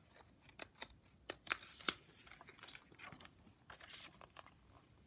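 Pages of a picture book being turned by hand: faint paper rustles with a few light clicks and taps in the first two seconds, and another rustle about four seconds in.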